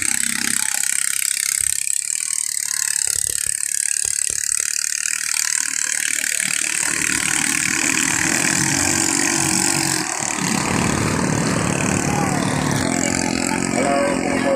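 Ketinting longtail boat engines, small single-cylinder petrol motors driving long-shaft propellers, running steadily in a race.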